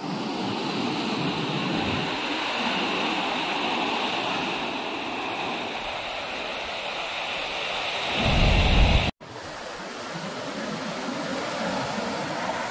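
Sea surf washing onto a beach, a steady rushing hiss. About eight seconds in, wind buffets the microphone with a low rumble, then everything cuts off suddenly for an instant before the surf returns.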